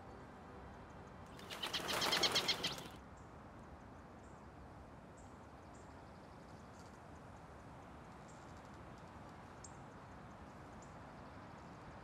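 Forest bird ambience. A loud, rapid fluttering rattle of about ten pulses a second lasts a second and a half near the start. Then come scattered faint, high bird chirps over a soft, steady background hiss.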